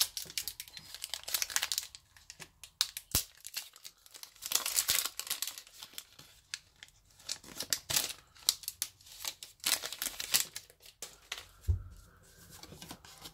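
Foil Pokémon booster pack wrapper being torn open and crinkled by hand, in irregular crackles, then the trading cards from it handled and slid against each other.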